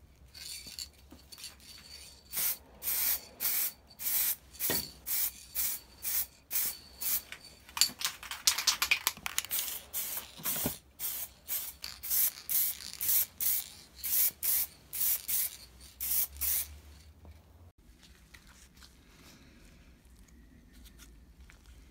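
Aerosol can of metallic silver spray paint sprayed in short hissing bursts, one or two a second, which stop about three-quarters of the way through.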